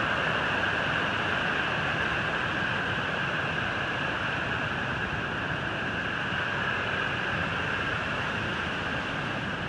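Waterfall: a steady rush of falling and cascading water, easing slightly near the end.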